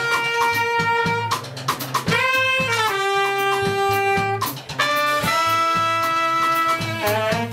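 Live jazz: a saxophone plays long held notes, each lower than the one before, over a steady drum and bass backing.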